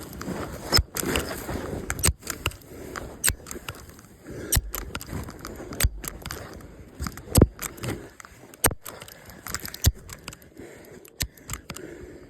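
Irregular sharp crunches and clicks, one or two a second, the loudest about seven seconds in.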